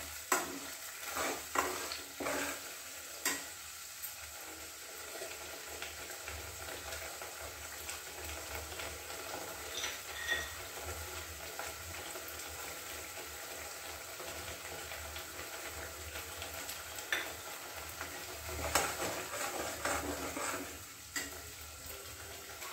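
Tomato-onion paste frying in oil in a steel kadai, a steady sizzle. A metal spatula stirs and scrapes against the pan in the first few seconds, and a few more clinks come near the end.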